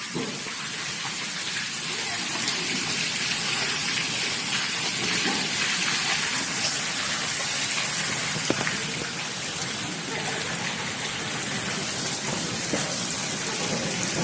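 Heavy monsoon rain pouring steadily onto standing floodwater: a dense hiss of drops splashing on the water, with a few sharper drop hits here and there.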